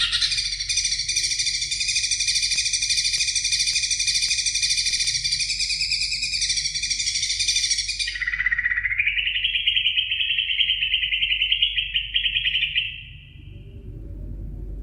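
Green leafbird (cucak ijo) singing a long, rapid, unbroken trill that fills many pitches at once; about eight seconds in it changes to a narrower trill that climbs in pitch, and it stops about 13 seconds in.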